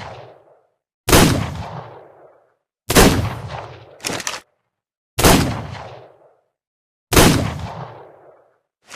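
Revolver gunshot sound effect: four single shots about two seconds apart, each with a long echoing tail that fades away, and a shorter, fainter report between the second and third shots.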